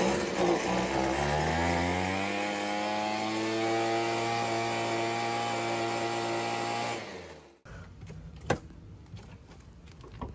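Handheld gas leaf blower running, its engine revving up over the first few seconds to a steady high speed, then shutting off suddenly about seven seconds in. A few knocks follow.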